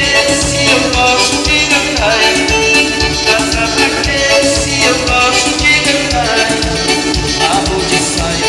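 Upbeat live dance-band music with a steady beat, bass line and sustained melody, with occasional sung lines.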